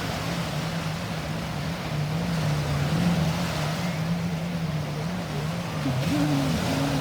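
Motorboat engine running steadily while towing a banana boat, its pitch wavering up and down about once a second, over a rush of wind and water. A second, higher engine tone joins near the end.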